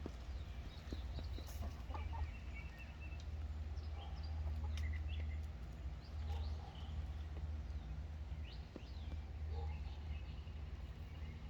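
Domestic chickens clucking and calling in short, scattered notes over a steady low rumble.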